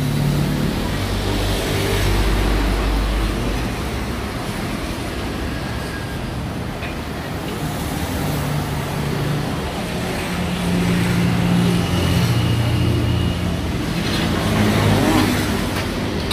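Motor vehicle engines running, a steady low hum that shifts up and down in pitch every few seconds.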